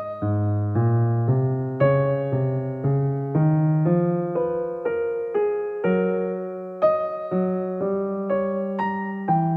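Slow, gentle piano music: single notes struck about twice a second over a low bass line, each note fading before the next.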